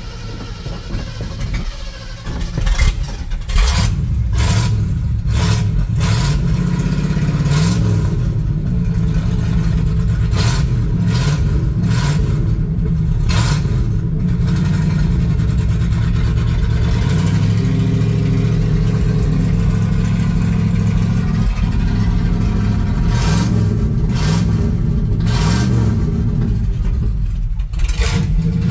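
Old Ford pickup's carbureted engine cranks and catches about three seconds in, then keeps running steadily with the accelerator held down, broken by irregular sharp crackles. It will not idle by itself; the owner is unsure whether the freshly rebuilt carburetor is getting too much fuel or not enough.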